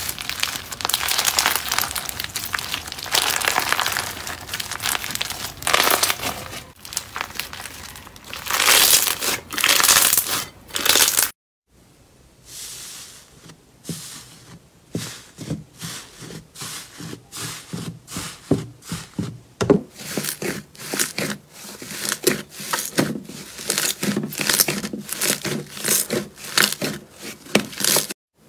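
Handled slime. First, a white slime studded with beads is stretched and torn apart with a dense, continuous crackle. After a brief silence, a glossy brown slime is pressed with the fingertips and gives a run of separate sharp pops and squelches, about one or two a second, as air pockets burst.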